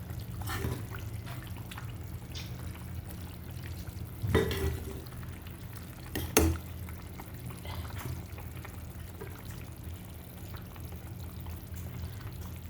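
Fish and vegetable curry bubbling in a pot, over a steady low hum, with a few sharp knocks of a utensil against the pot, the loudest about four and six seconds in.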